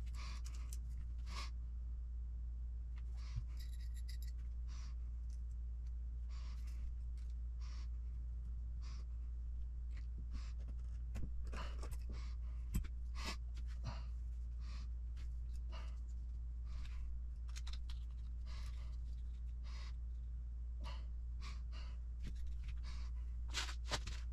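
Small metal and plastic kit parts and hand tools being handled and set down on a work mat, giving scattered light clicks and taps at irregular intervals over a steady low hum.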